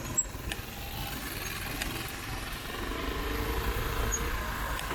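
Street traffic: motor vehicles passing with a steady low rumble, one engine swelling louder about three seconds in, and a few light clicks.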